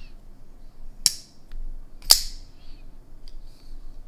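Hinderer XM-18 3.5 flipper folding knife being flicked by hand: two sharp snaps of the blade about a second apart, the second louder, with a few fainter clicks from the knife being handled.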